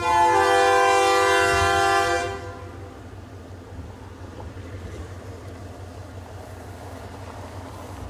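Diesel locomotive air horn sounding one loud blast of about two and a half seconds, a chord of several tones, then a low steady rumble.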